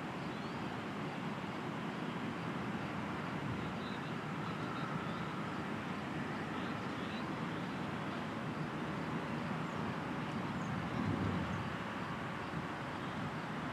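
Steady outdoor background noise, rising briefly about eleven seconds in.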